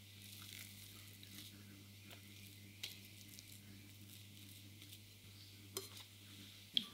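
Spatula working thick chocolate cake batter in a metal cake pan, giving a soft wet scraping and squishing, with a few light clicks and knocks. The sharpest knock comes near the end as the pan is handled on the scale. A steady low hum runs underneath.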